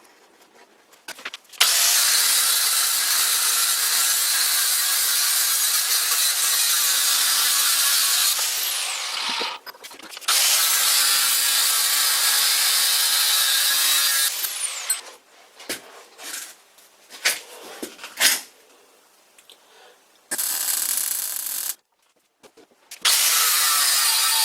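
A power tool cutting or grinding metal in several runs of a few seconds each. It makes a steady, high-pitched noise, and each run winds down at the end. Short clicks and knocks fall between the runs.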